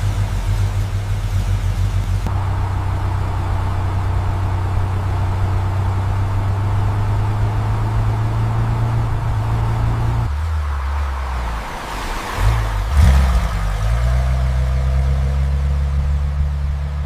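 Car engine running steadily. About ten seconds in its note changes, and around twelve to thirteen seconds in there is a brief rev before it settles back to a steady run.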